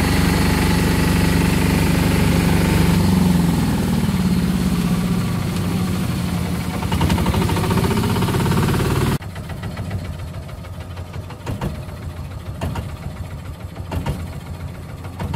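Longtail boat engine running loud and steady under way, its note easing and dropping about three seconds in. About nine seconds in the sound cuts sharply to a quieter, uneven engine run with scattered knocks.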